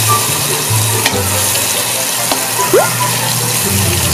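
Butter sizzling as it melts in a hot pan, with a metal spatula pushing it around and scraping the pan, and a sharp click about a second in.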